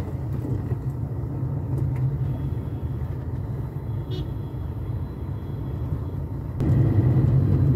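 Steady low rumble of a car driving, heard from inside the cabin: engine and road noise. It grows louder about six and a half seconds in.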